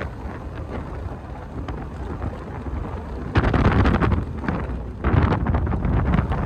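Wind buffeting the microphone in a moving car, over a steady low rumble, with two louder gusts about three and five seconds in.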